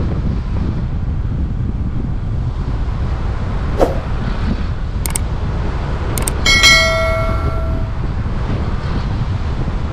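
Heavy rain with wind buffeting the microphone: a steady, loud rush and low rumble. A few sharp clicks come in the middle, then a metal object is struck and rings for about a second.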